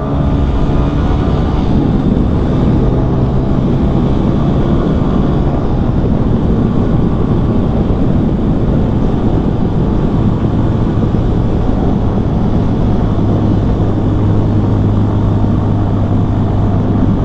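CFMoto Papio XO-1 minibike's single-cylinder engine running steadily at road speed, with wind rushing over the microphone; a low hum strengthens about ten seconds in.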